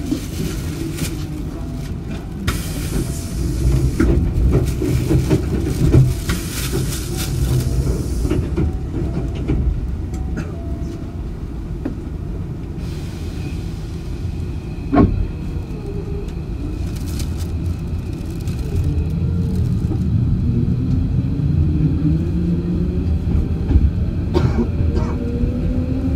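Hankyu 8000 series electric train heard on board: running rumble and rattle that dies down, a single sharp clunk about midway, then traction motor whine rising steadily in pitch as the train pulls away and accelerates.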